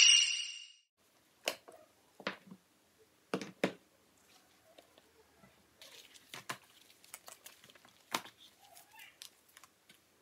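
Sheets of paper and books being handled and set down on a desk: scattered light knocks, taps and paper rustles, a few seconds apart. A short ding fades out at the very start.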